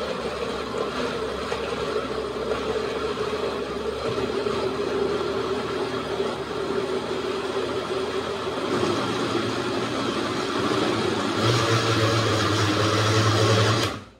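Countertop blender motor running, puréeing green tomatoes, onions and a chili in canned enchilada sauce. Its pitch shifts about nine seconds in and it gets louder a couple of seconds later, then it cuts off suddenly just before the end.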